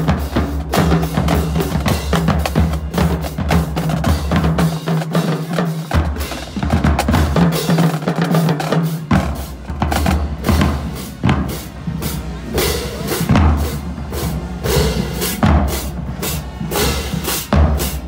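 School marching drumline playing a cadence: rapid snare drum strokes over pitched bass drums and tenor drums, with crash cymbals. The low bass drum notes drop out briefly twice, about five and eight seconds in.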